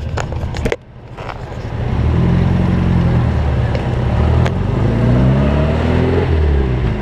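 A clunk in the first second, then a car engine pulling away and accelerating, its pitch climbing in steps through the gears.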